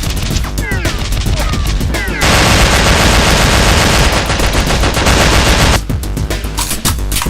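Rapid automatic gunfire sound effects over background music. In the middle there is a louder, dense stretch of continuous fire lasting about three and a half seconds, with separate shots before and after it.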